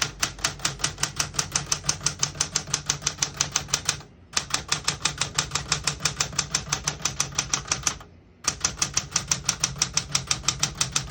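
1968 Smith-Corona Super Sterling manual portable typewriter being typed on: fast, even key strikes, about eight a second, with two short pauses about four and eight seconds in.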